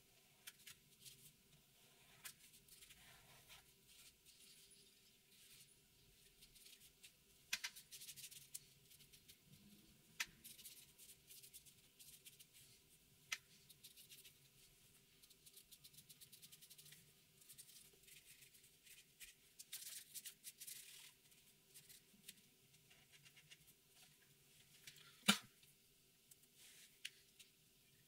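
Black marker pen scratching across paper in many short strokes as lines are inked, faint, with a few sharp clicks, the loudest about 25 seconds in.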